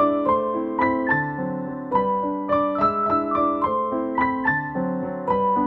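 Background music: a gentle piano melody of evenly paced notes, about three to four a second.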